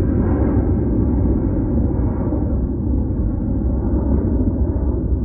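Jet engines of a Boeing 737 climbing away after takeoff: a loud, steady rumble whose higher part slowly fades, leaving it duller as the plane recedes.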